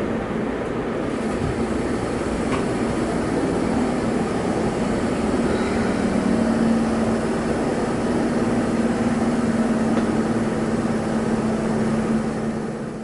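Electric subway-type train running slowly through an underground station: steady running noise, with a steady hum that joins about halfway through and fades out near the end.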